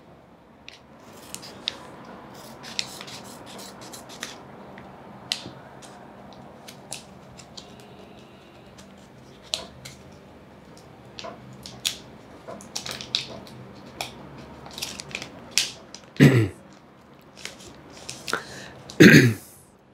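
A sterile suture packet being cut with small scissors and pulled open by hand: a string of small crinkles, snips and clicks, with two louder crackling rustles near the end.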